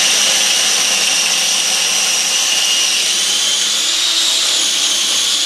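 Small food processor running, its S blade chopping sunflower seeds: a loud, steady, high-pitched motor whine.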